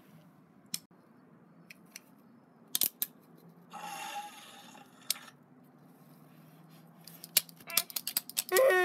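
Scattered sharp clicks and clacks of plastic toys being handled, including a toy dinosaur, with a breathy rasp in the middle. A quick run of clicks comes near the end, and right at the end a child's voice starts a high wail.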